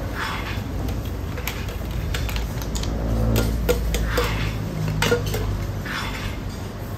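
Aluminium cooking pots knocking and clinking as curry is poured from a saucepan into a small serving pot and the saucepan is set down, with a low rumble in the background that swells midway.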